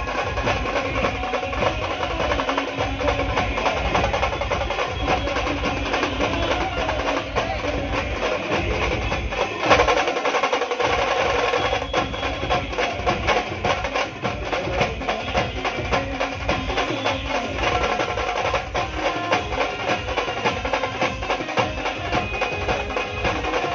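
Band music played live through a loud sound system: a fast, busy drum beat with woodblock-like clicks drives the rhythm under a melody. One sharp loud hit lands about ten seconds in.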